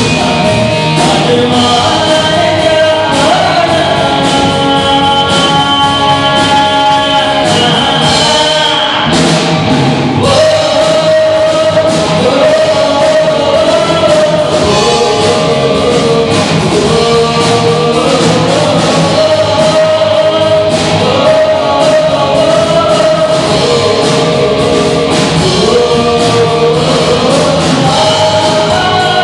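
Live rock band playing: a male singer's voice carries held, sliding melody lines over electric guitar, bass guitar and a drum kit with steady cymbals. The band briefly thins out about nine seconds in before the next phrase.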